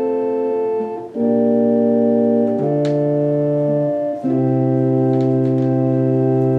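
Baldwin HT2 electronic organ playing a slow hymn in held chords over low bass notes. The chords change three times, with short breaks between them where the notes are released, since the organ has no sustain.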